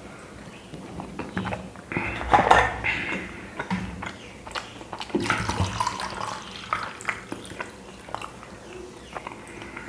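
A person eating chapati and curry: chewing and handling food, with scattered clicks and clinks of dishes and two louder handling noises a few seconds apart.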